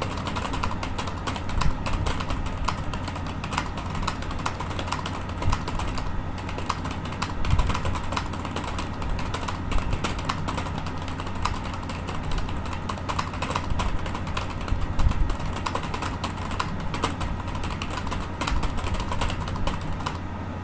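Fast, continuous typing on a computer keyboard: a dense run of key clicks that pauses briefly about six seconds in and stops near the end, over a steady low hum.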